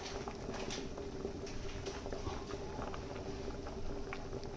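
Hot water simmering around soya chunks in a pot on the stove: a steady hiss with scattered faint pops and crackles.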